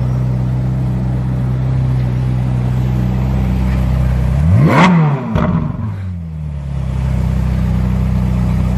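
Ferrari 458 Spider's V8 idling, revved sharply once about halfway through, with a second smaller blip as the revs fall back and settle to idle. The revving is the loudest part.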